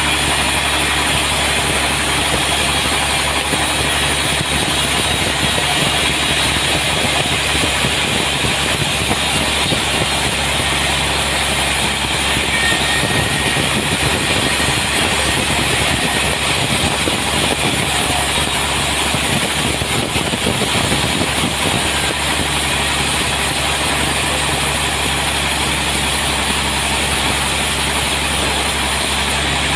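Sawmill running steadily through a large trembesi log, a loud, even machine drone with no change in level.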